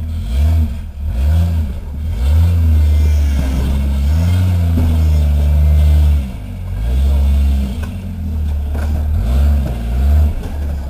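Rock crawler buggy's engine revving in repeated throttle blips as it crawls over rocks, the pitch rising and falling again and again, with one longer held rev in the middle.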